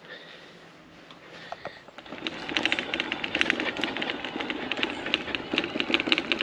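Rapid clicking and rattling as wheels roll over a flagstone path, starting about two seconds in and carrying on steadily.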